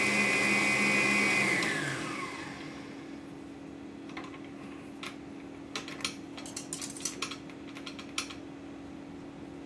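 Electric stand mixer whisking egg whites at high speed, then switched off and winding down with a falling whine about a second and a half in. After that, a run of sharp clicks and metallic knocks as the tilt head is raised and the wire whisk touches the steel bowl.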